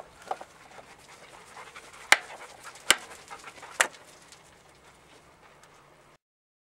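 Rustling handling noise and three sharp plastic clicks about a second apart as hands work a plastic epoxy syringe; the sound cuts off abruptly near the end.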